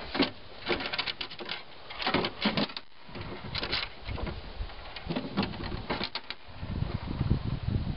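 Light clicks and rattles of plastic trolling-motor parts being handled, coming in several short clusters, with a low rumble near the end.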